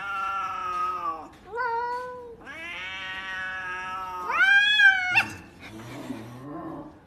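Cats caterwauling in a face-off: long, drawn-out yowls, a short rising meow about a second and a half in, and the loudest, a rising-then-falling howl about five seconds in, cut off by a sharp tap.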